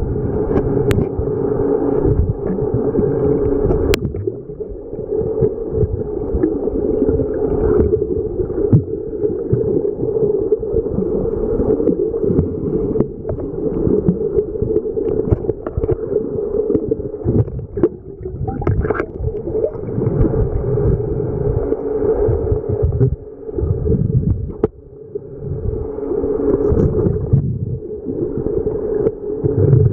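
Muffled underwater sound picked up by a submerged camera's microphone: a steady hum over a dense low rumble that swells and dips, with two sharp clicks in the first few seconds.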